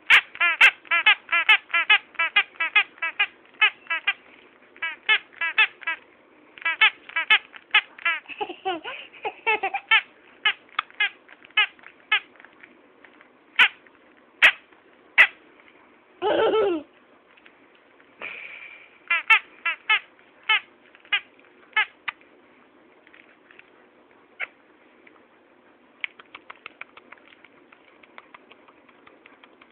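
Rubber squeaky dog toy squeaked over and over in quick runs of several squeaks a second, with short pauses, growing sparser toward the end. One longer, louder falling sound comes about sixteen seconds in.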